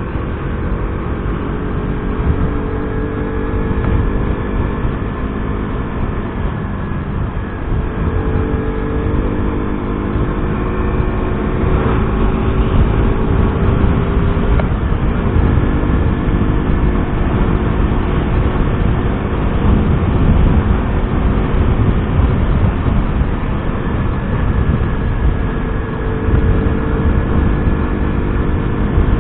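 Motorcycle engine running at a steady cruise while riding, its pitch drifting slightly with the throttle, under heavy wind rush on the helmet-mounted microphone.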